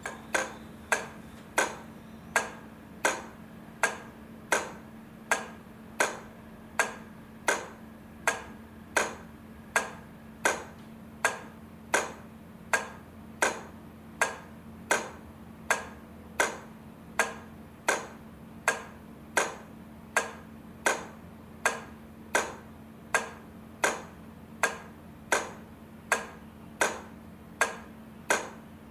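Railway crossing-light flasher clicking steadily as it switches the lights, about three clicks every two seconds, over a faint steady electrical hum.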